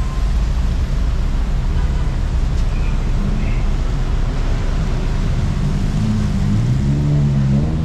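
Road traffic on a wet city street: a steady rumble and hiss of passing vehicles. Near the end a vehicle engine grows louder, its pitch rising and falling.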